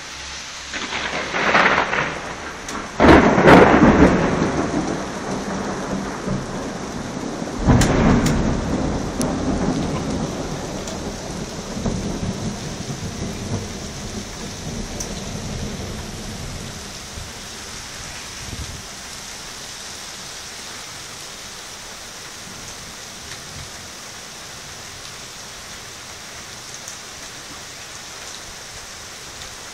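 Thunder from close lightning: three loud bangs, about a second in, around three seconds in (the loudest) and near eight seconds, each rolling into a rumble that dies away over the next several seconds. Steady rain is heard under and after the thunder.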